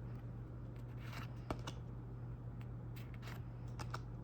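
Pokémon trading cards being handled and flipped through, sliding against one another: a scattered run of short rustles and snaps, over a steady low hum.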